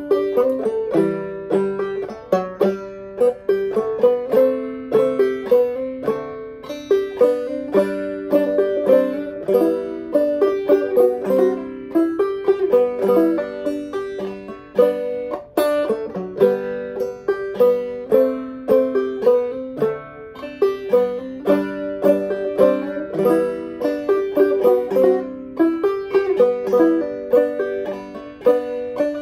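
Five-string banjo played solo clawhammer style in gDGBD tuning, picking out a waltz melody in a steady stream of plucked notes.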